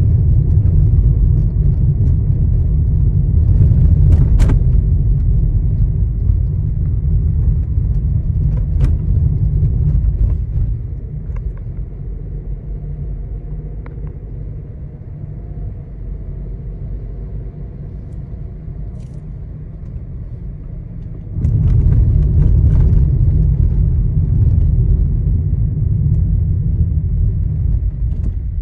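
Inside the cabin of a moving Skoda Kushaq 1.0 TSI automatic: heavy road rumble with scattered sharp clicks and rattles from the interior trim, the persistent rattle fault the owner reports from the dashboard, centre console and doors. The rumble drops away about ten seconds in and comes back loudly about eleven seconds later.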